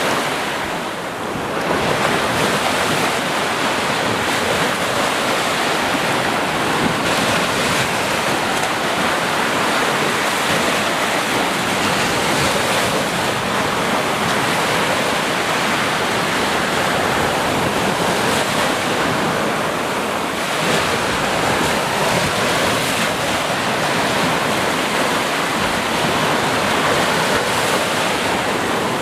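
Ocean waves breaking and washing on the shore in a continuous rush of surf, with slight swells and lulls in level.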